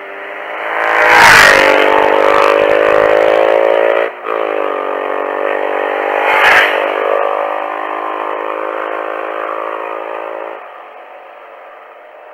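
Motorcycle engine accelerating hard past, with a brief break and pitch change about four seconds in like a gear change, then fading away near the end. Two short rushes of noise about a second and six and a half seconds in.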